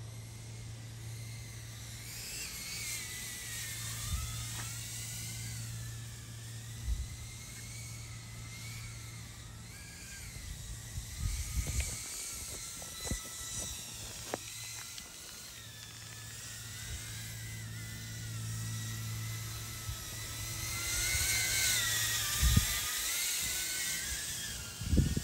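Whine of a DarwinFPV CineApe 25 cinewhoop drone's propellers in flight, its pitch rising and falling with the throttle. A few short low thumps are heard, the loudest near the end.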